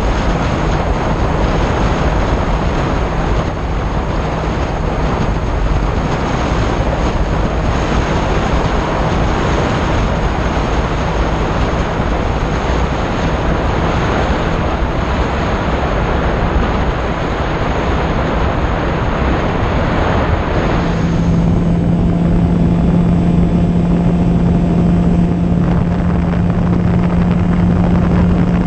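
Onboard audio of an E-flite Opterra flying wing in flight: air rushing past the camera over the steady hum of its electric pusher motor and propeller. About 21 seconds in, a faint high whine drops out, the rush turns less bright, and the low motor hum grows louder.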